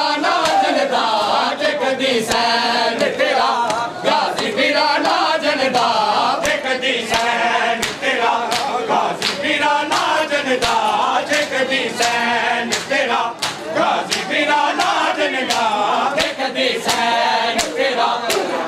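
A crowd of men chanting a Punjabi nauha (mourning lament) in unison, over a steady beat of sharp slaps from hands striking bare chests in matam, roughly two a second.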